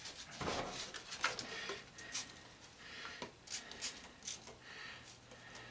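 Scattered light clicks, taps and short scrapes of metal parts and hand tools being handled while a belt/disc sander is taken apart.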